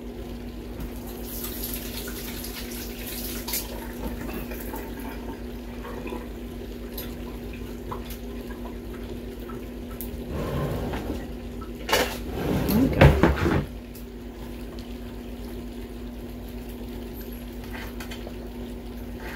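Kitchen faucet running briefly into the sink, then a few knocks and clatters of dishes and utensils. A steady low hum sits under it all.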